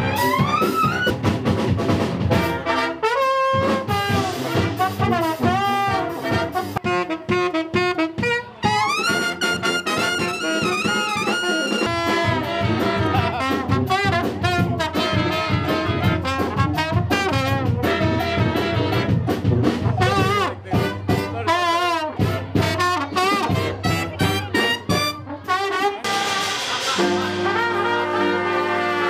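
Brass band playing live: trumpets, trombone and saxophone over drums in a jazz-style number, with long held notes near the end.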